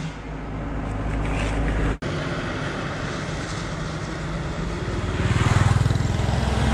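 Road vehicle passing: a steady low engine rumble swells louder from about five seconds in, with tyre noise. The sound cuts out for an instant about two seconds in.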